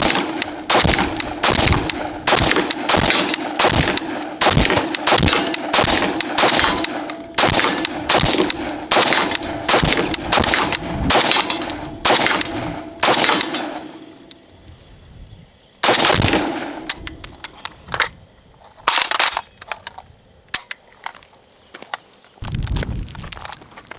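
WBP Jack rifle, an AK-pattern rifle in 5.56 mm, fired in quick semi-automatic shots at about two a second, followed after a short pause by a few slower, spaced shots.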